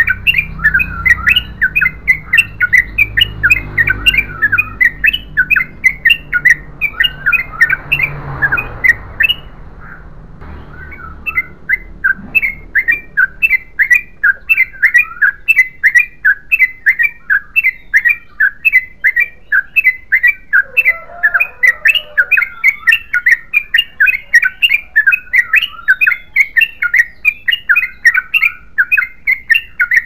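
Yellow-vented bulbul (trucukan) singing a long, rapid-fire run of loud chattering notes. The run breaks off for about two seconds roughly a third of the way through, then resumes. A low rumble lies under the first third.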